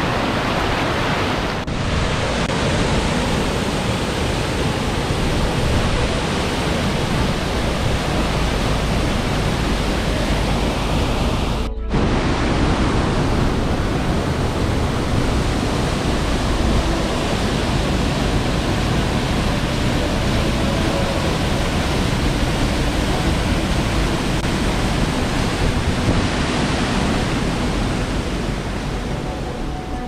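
Loud, steady rush of a rocky mountain stream and waterfall, white water tumbling over boulders, broken twice by a momentary cut, about two seconds in and again about twelve seconds in.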